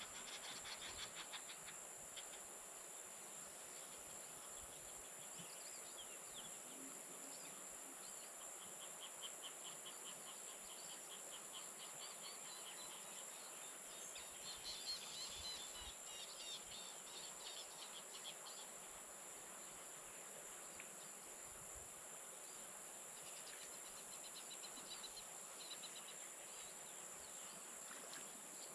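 Evening insect chorus: a steady high-pitched drone from many insects, with rapid pulsing trills that come and go over it, loudest in the middle.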